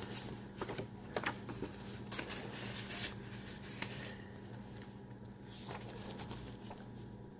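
Paper and cardstock pages of a handmade junk journal rustling and clicking softly as they are turned and handled, mostly in the first half, over a faint steady hum.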